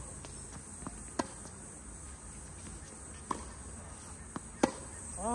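Tennis ball struck and bouncing in a rally: sharp single knocks a second or two apart, the loudest near the end, over a steady high-pitched insect chirring.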